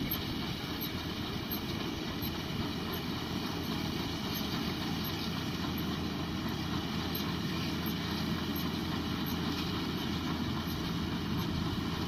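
Rural King RK55 tractor engine running steadily as it pulls a Case 3450 round baler.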